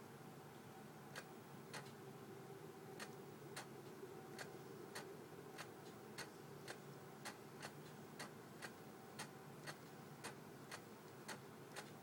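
Canon EF-S 17-85mm lens's image stabilizer clicking in sharp, slightly irregular ticks about every half second as the image jerks from side to side, the sign of a faulty stabilizer unit.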